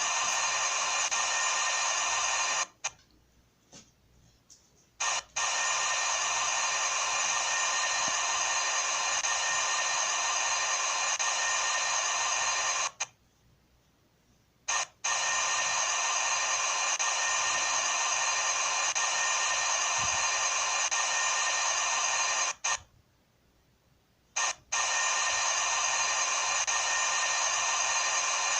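CNC machine running with a steady high-pitched whine made of many tones. It cuts out abruptly three times for about two seconds each, then starts again just as suddenly.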